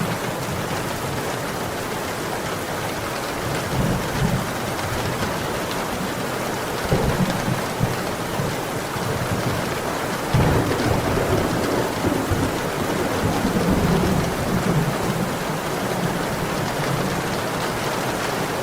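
Steady heavy rain with low rolling thunder rumbling under it, swelling a few times and strongest from about ten seconds in.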